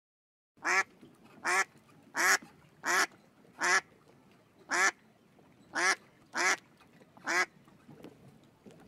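A duck quacking: nine short quacks at a fairly even pace, roughly one a second.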